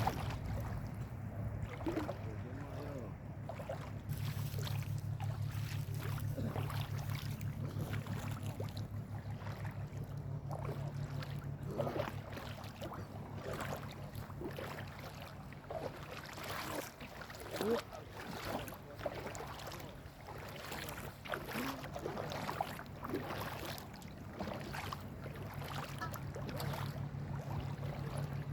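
Footsteps wading through shallow sea water, each step a short splash, at an uneven walking pace. A steady low motor hum runs underneath.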